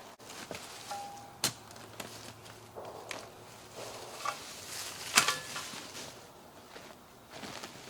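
Footsteps through leaf litter and the handling of cedar logs, with scattered knocks and clicks. The sharpest knocks come about a second and a half in and just after five seconds.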